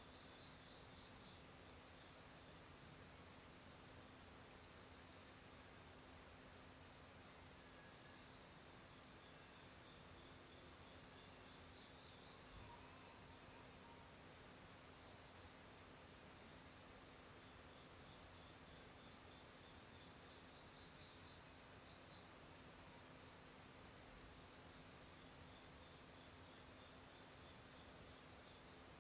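Faint chorus of crickets trilling steadily at a high pitch. Through the middle, a sharper chirp repeats about twice a second.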